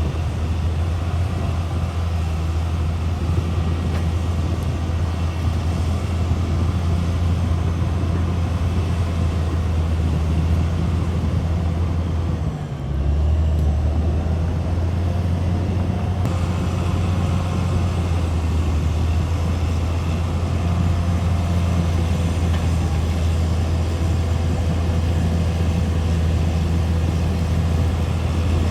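CAT D6R XL bulldozer's diesel engine running steadily with a deep drone, dipping briefly about halfway through before picking up again.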